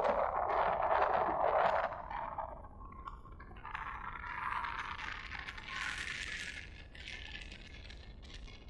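Surf of a stormy sea: a wave's rush that fades about two seconds in, followed by quieter hissing washes that swell and ebb.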